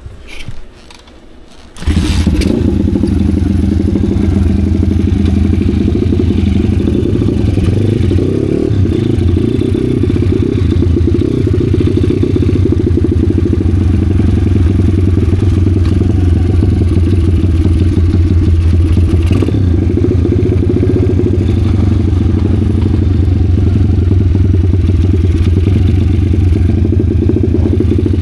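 Kayo pitbike's 125 cc single-cylinder engine running loud and steady under way, coming in suddenly about two seconds in. It is running on a newly fitted carburettor that is not yet set up, so it does not yet run well.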